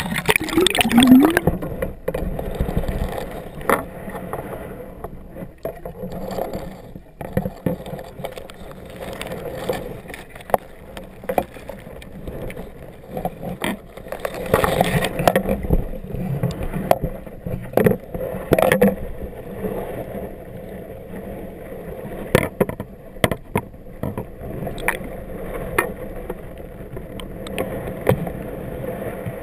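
Lens cover dangling on its lanyard, knocking irregularly against the camera's underwater housing, over muffled underwater water noise.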